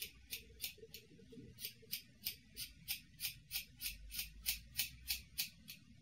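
Scissors snipping through the ends of a gathered bunch of hair, a steady run of short snips about three a second.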